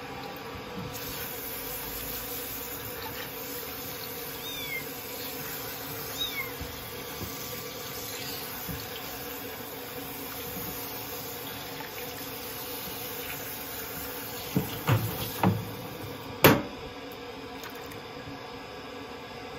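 Water running from a handheld shower head into a plastic basin while a kitten is bathed. Twice, about a quarter of the way in, the kitten gives a short, faint, high falling squeak. Near the end come a few loud knocks, the last and sharpest the loudest.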